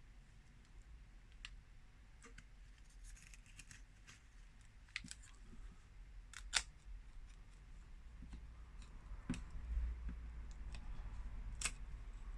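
Faint scraping and scattered sharp clicks of a pry tool being worked under a heated phone display, cutting through the screen adhesive. The sharpest click comes about halfway through.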